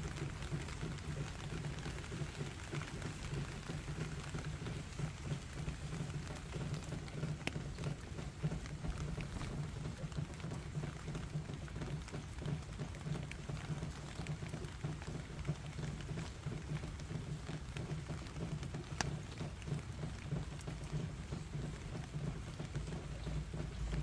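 Steady rain falling on wet gravel, with a few sharper single drop hits, over a steady low rumble.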